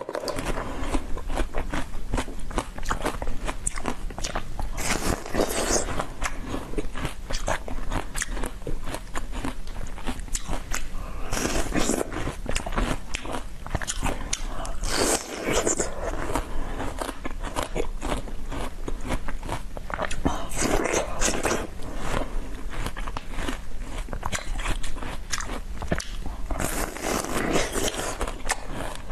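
Close-miked biting and chewing of a frozen basil-seed ice slab: a dense run of crunching, crackling clicks, with a louder bite every few seconds.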